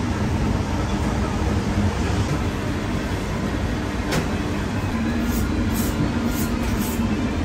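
Steady low mechanical rumble of a busy commercial kitchen, with a single sharp tap about four seconds in and a few faint ticks after it.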